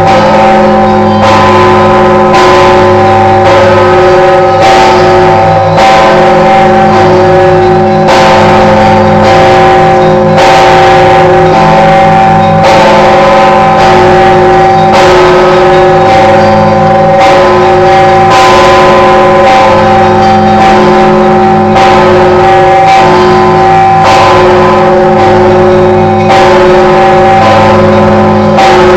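Heavy Orthodox church bell (the 7150 kg 'All Saints' bishop's cathedral bell) ringing loudly. It is struck over and over, about once a second, and its deep tones ring on and overlap between strikes.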